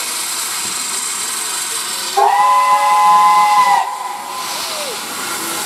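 Steam whistle of the L-4600 steam locomotive giving one blast about a second and a half long, over a steady hiss of escaping steam. As the blast ends, a fainter tone lingers and slides down in pitch.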